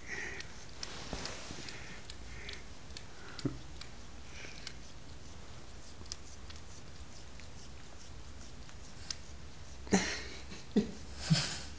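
Cat licking and grooming a man's hair right at the microphone: soft, scattered wet ticks of its tongue on the hair, with a few louder short noises near the end.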